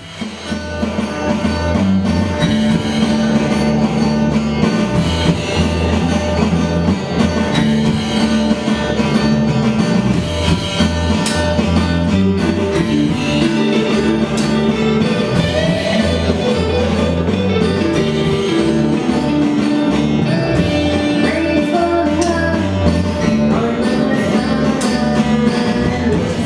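Rock band playing live: electric guitars, bass guitar and drum kit, with a woman singing lead into a microphone.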